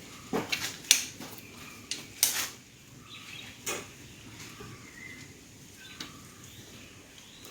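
Scattered sharp clicks and knocks of parts and tools being handled, about five in the first four seconds, then only faint background.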